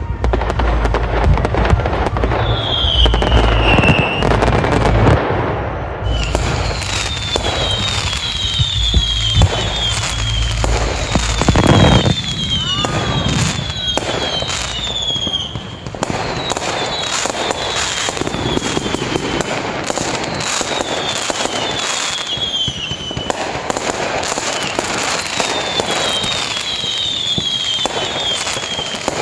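Fireworks bursting in rapid succession: a dense barrage of bangs and crackles with many short falling whistling tones. It is heaviest and deepest in the first dozen seconds, then thins to lighter crackling bursts.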